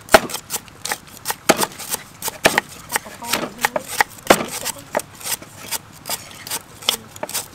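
Two kitchen knives slicing lemongrass stalks into thin rounds on a thick wooden chopping board: an uneven run of crisp knocks, a few a second, as the blades strike the board.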